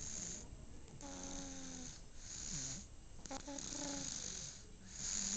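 Snoring in slow, repeating breaths, about three in a row, some carrying a short low pitched note.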